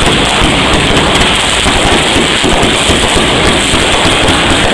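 Consumer fireworks going off close by: a loud, continuous crackle of rapid pops with no pause.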